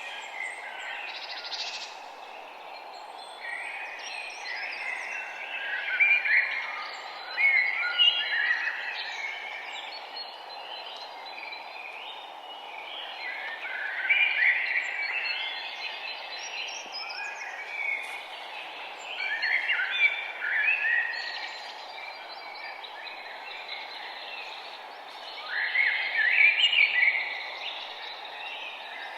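Songbirds singing outdoors: bursts of warbling song a few seconds apart, over a steady background hiss.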